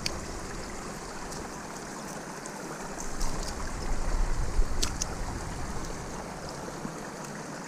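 Shallow stream water running steadily over rocks, with a low rumble swelling for a couple of seconds about halfway through and a few faint clicks.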